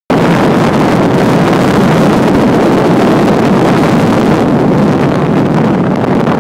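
Loud, steady wind rushing over the microphone of a camera carried through the air on a tandem paraglider in flight.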